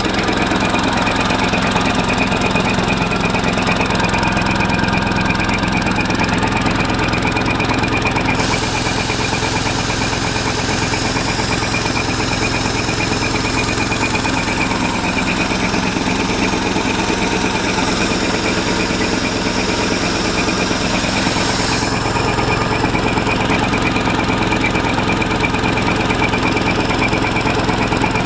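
Petrol-engine-driven air compressor, a 7.5 hp walk-behind tractor engine turning a 900 L/min compressor head, running steadily with a pulsing high whine. From about eight seconds in until about twenty-two seconds, a loud high hiss joins it and then stops suddenly.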